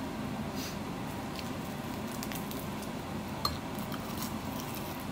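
Someone eating rice with Korean seaweed (gim): a metal spoon clicking in a bowl and soft chewing, with one sharper clink about three and a half seconds in, over a steady low hum.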